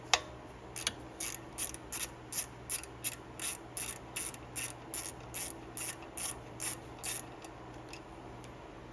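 Ratchet wrench clicking in a steady rhythm, about three clicks a second, as it backs out the bolt holding the carburetor float bowl. One sharp click comes at the very start, and the ratcheting stops about two seconds before the end.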